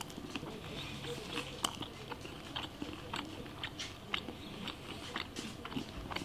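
Close-up chewing of a mouthful of crispy chicken sandwich on toasted sourdough bread, with soft, irregular clicks and crackles. There is little real crunch: the eater thinks the tortilla chips inside have gone soggy from the spread, and only the sourdough crust crunches.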